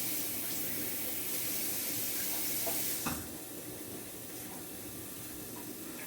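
Water hitting a hot pan of cooking apples, hissing and steaming. The hiss drops to a quieter sizzle about three seconds in.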